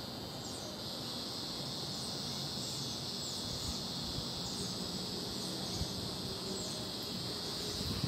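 A northern dusk-singing cicada giving a steady, high-pitched buzz: the distress cry of a cicada held in a bird's beak.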